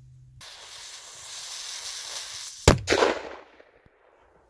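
Dum Bum firecracker going off: the lit fuse hisses for about two seconds, then there is a single sharp bang, with a short burst of echo after it.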